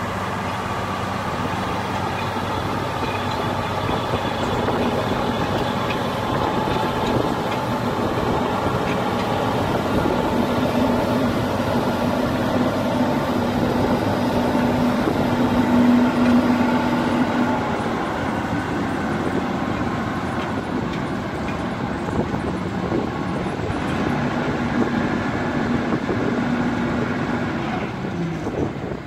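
Tractor engine running under steady load while the MeriPeat HK-16.5 milled-peat loader's pickup and belt conveyor work, giving a continuous mechanical drone. The engine note swells around the middle and eases again.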